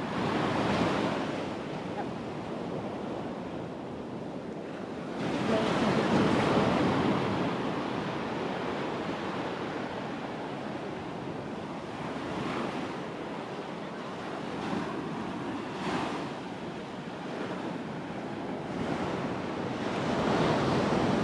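Ocean surf breaking and washing up a sandy beach, swelling louder about five seconds in and again near the end.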